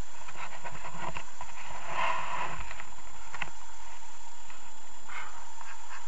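Trail motorcycle ridden along a forest track: a steady rush of engine and riding noise, with scattered knocks and rattles from the bike jolting over the ground.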